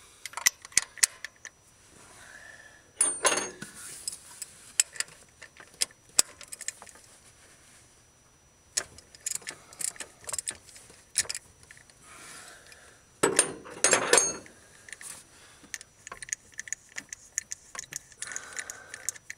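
Metal hand tools clinking and clicking against each other and the engine as a spark plug socket wrench is fitted and worked on a spark plug in the cylinder head. Two louder rattling clatters come about three seconds and about thirteen seconds in.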